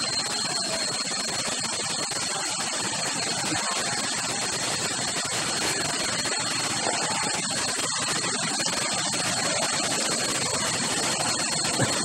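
Steady rush of water from the waterfall's cascades and pools, even and unbroken, with a constant thin high whine running through it.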